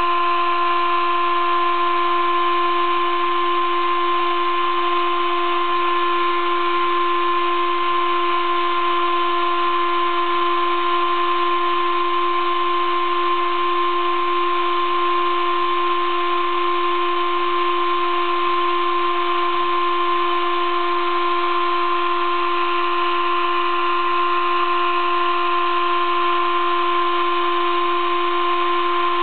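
Sable-2015 desktop CNC mill engraving acrylic board with a 20-degree V engraving cutter, 0.3 mm deep: a steady spindle whine of several tones over an even cutting hiss.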